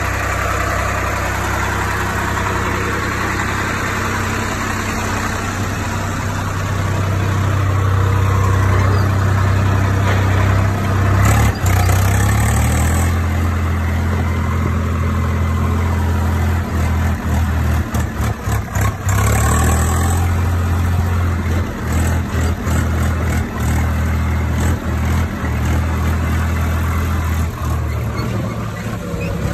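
Swaraj 855 FE tractor's three-cylinder diesel engine running steadily while pulling a disc harrow. Its note shifts about a third of the way in and again about two-thirds in, and the sound dips briefly and repeatedly in the second half.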